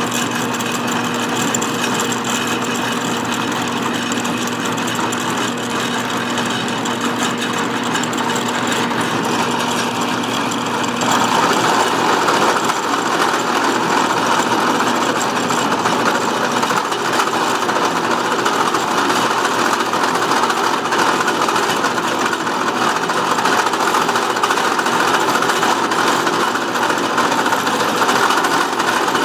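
Harbor Freight drill press running as a milling machine, cutting down an oversized hub ring: a steady motor hum under a dense cutting noise that grows louder about eleven seconds in.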